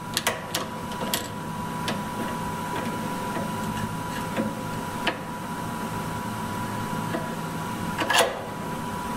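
Steady machine hum with a thin high whine. Over it come a few light metallic clicks and, about eight seconds in, a louder clatter as a brake-line flaring tool clamped in a vise is tightened and handled.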